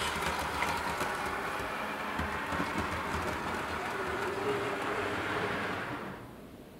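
Model Class 143 Pacer unit running over new Peco points and double slips, a steady whirr with a few light clicks that fades away about six seconds in. It runs smoothly over the new track.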